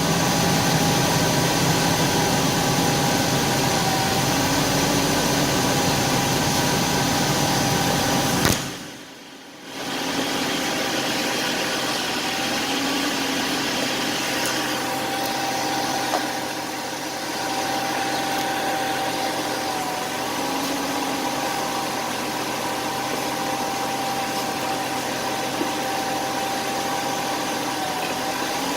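BMW 528 car engine idling steadily, with a thin steady whine above it. About a third of the way in the sound drops away for about a second, then returns slightly quieter in the low end.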